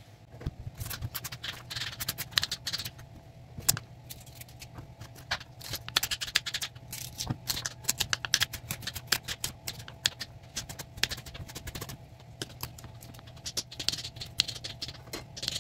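Kitchen knife chopping potatoes, carrots and onions on a wooden cutting board: quick runs of sharp taps as the blade strikes the board, broken by short pauses.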